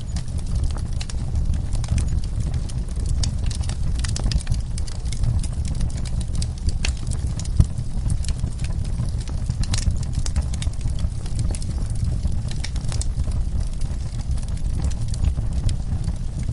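Wood fire crackling in a fireplace: frequent sharp pops and snaps, irregularly spaced, over a steady low rumble.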